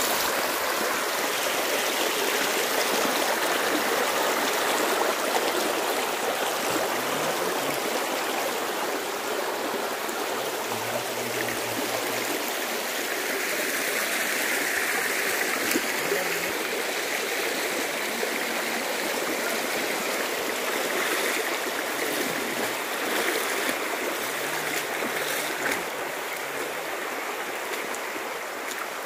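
Shallow river water rushing and babbling over rocks in a steady, continuous wash, a little fainter near the end.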